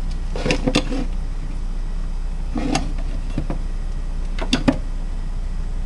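Pet minks moving about inside a cupboard, making a few short knocks and clicks against its contents, the two loudest close together a little before the end, over a steady low hum.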